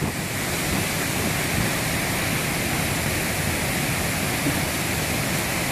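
Steady rush of flowing water, an even noise with no breaks.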